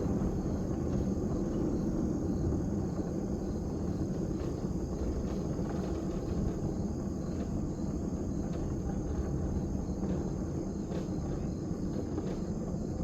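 Small backyard-railroad locomotive engine running steadily, a low continuous rumble with faint, irregular clicks above it.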